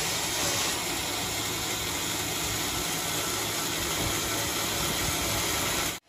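Band sawmill blade cutting lengthwise through a teak log, with the mill's motor running underneath: a steady, even noise that cuts off abruptly at the end.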